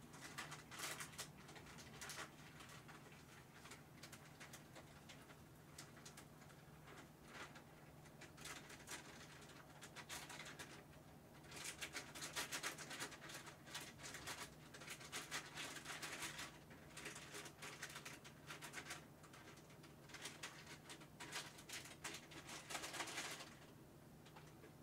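Faint room tone with a steady low hum, broken by bursts of faint rustling and clicking from someone handling things away from the microphone, busiest in the middle and again shortly before the end.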